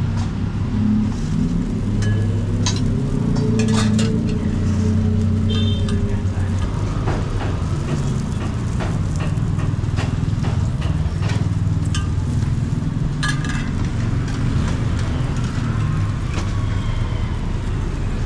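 Street traffic: a motor vehicle's engine rumbling low and steady, its pitch rising and falling in the first few seconds as it passes, with scattered short metallic clinks and taps throughout.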